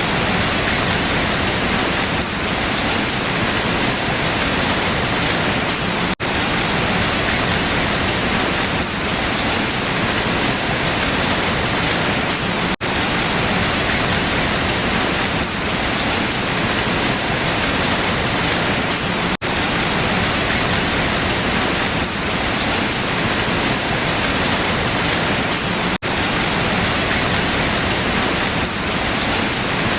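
Steady rain falling on leaves, an even hiss with a brief dropout about every six and a half seconds.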